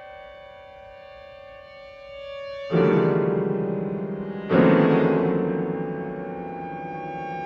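Contemporary chamber ensemble music: quiet held high tones, then two loud struck piano chords about two seconds apart, each ringing and slowly dying away.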